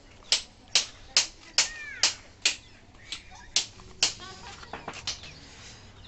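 A series of sharp knocks, about two to three a second, with a short pause about three seconds in and weaker, quicker ones near the end. A faint high call comes about two seconds in.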